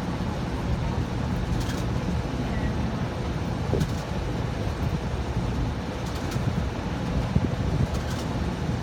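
Rheem air-conditioning blower unit running steadily, a continuous rushing hum with a faint steady tone and a few light ticks.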